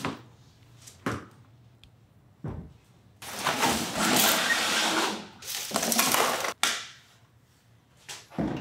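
Large corrugated cardboard packaging being handled and dragged: a long scraping rustle in two stretches in the middle, the second cutting off suddenly, with a few short knocks and bumps before and near the end.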